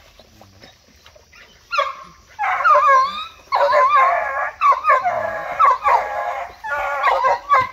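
Several hunting dogs baying and yelping in overlapping calls that waver in pitch, giving tongue as they chase a paca through a creek. The calls start about two seconds in and keep on with only short breaks.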